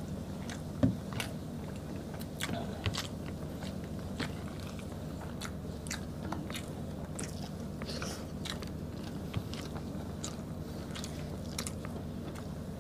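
Close-miked chewing and wet mouth sounds of people eating stewed beef and rice by hand: many sharp smacks and clicks over a steady low hum, with one louder knock about a second in.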